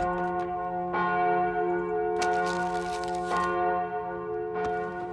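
Church bell ringing, struck about every second, its tones hanging on between strokes.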